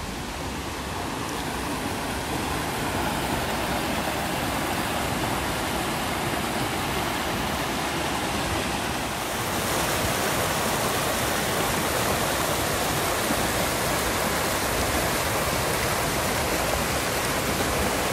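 Creek water rushing, a steady noise that grows louder over the first few seconds and rises a little again about halfway through.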